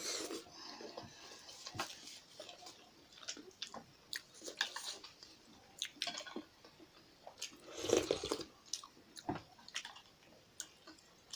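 Close-up wet chewing of soup-soaked momo dumplings, with irregular smacking clicks of lips and mouth and a louder wet burst about eight seconds in.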